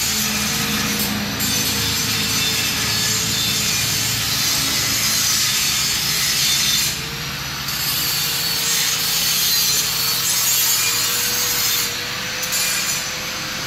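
Angle grinder with an abrasive disc working metal: a steady grinding hiss over a wavering motor whine, easing off briefly a few times as the disc leaves the work.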